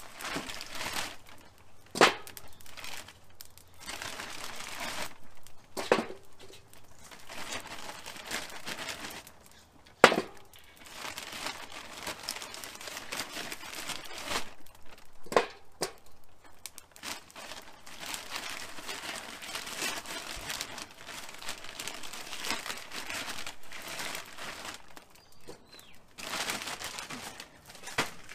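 A bag of mesquite wood chunks rustling and crinkling as chunks are pulled out, with four sharp knocks as chunks are dropped onto the hot charcoal briquettes in the smoker's charcoal basket, the third the loudest.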